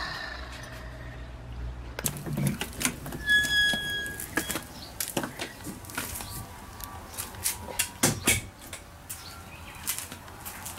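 Handling noise from a handheld camera being carried around: scattered clicks, knocks and rustling, with one short high squeak about three seconds in.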